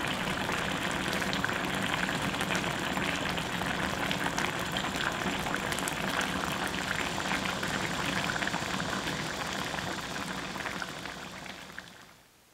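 Thick chili sauce of a braised hairtail stew bubbling in a pot as it simmers, a dense patter of small popping bubbles. It fades out near the end.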